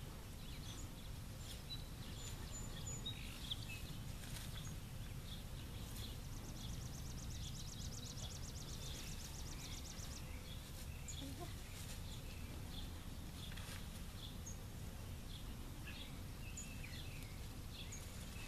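Outdoor farmyard ambience: a steady low rumble, with scattered faint high bird chirps and a fast, even, high-pitched trill lasting about four seconds from roughly six and a half seconds in.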